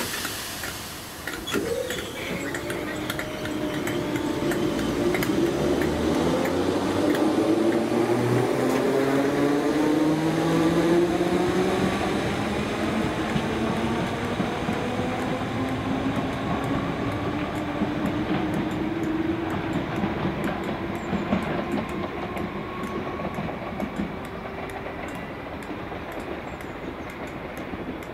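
Merseyrail electric multiple unit pulling away, its traction motors whining in several tones that rise steadily in pitch as it accelerates, with wheels clacking over the rail joints. The sound grows loudest about ten seconds in and then slowly fades.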